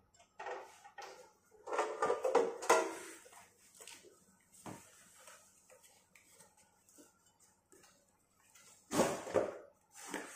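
Irregular knocks and metal clatter from saw parts being handled during a blade change on a cut-off saw, busiest about two seconds in, with another short burst near the end.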